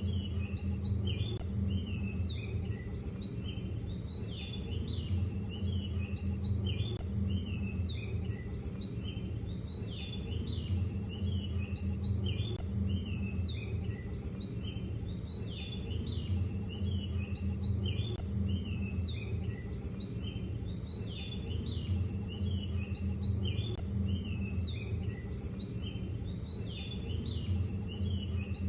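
Several songbirds chirping and twittering without a break, over a steady low rumble.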